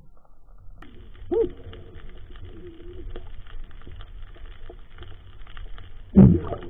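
Muffled underwater noise picked up through a camera's waterproof housing while a diver handles a speared fish: a steady low rumble, a short rising-and-falling warble about a second and a half in, and a loud low thump near the end.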